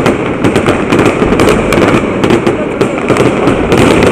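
Fireworks display going off in quick succession: many overlapping bangs and sharp crackles, several a second, over a continuous rumble.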